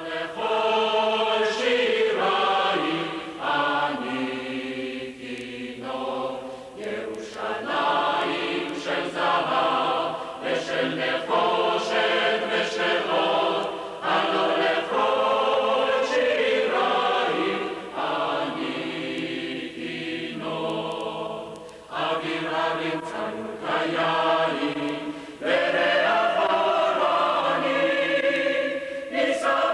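A choir singing a slow piece in long held notes, phrase after phrase, with short breaks between phrases.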